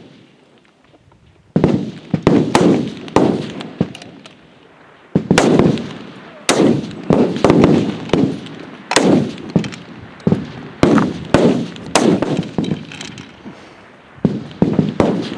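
F-Class target rifles firing along the line, many shots from several shooters coming at irregular intervals, each a sharp crack with an echo trailing after it. The shots start about a second and a half in, with a short lull a few seconds later.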